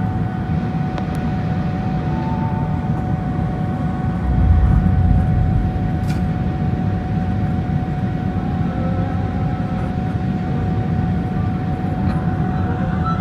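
Airbus A380 jet engines running: a steady whine over a low rumble, with a brief deep thump about four and a half seconds in.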